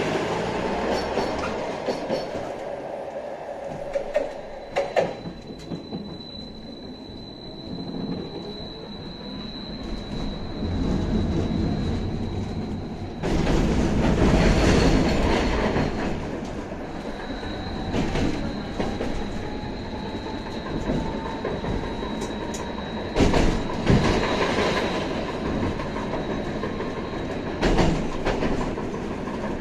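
BKM 802E tram rolling along the track, heard from inside the passenger cabin. There is steady running noise with a thin high whine held for several seconds at a time. Sharp clacks come over rail joints, a pair about five seconds in and more near the end.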